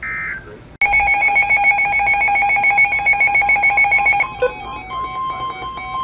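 A short burst of NOAA Weather Radio SAME data tones closes the last message. Just under a second in, weather radios break into a loud, rapidly pulsing electronic alert beep. A little past four seconds it changes to a steady high warning alarm tone with beeping over it, the alert for an incoming warning.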